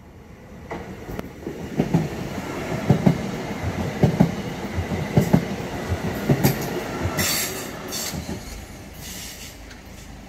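A passenger train passes close by at a level crossing. Its wheels thump rhythmically over the rail joints, louder in the middle of the pass. Two short high-pitched wheel squeals come near the end.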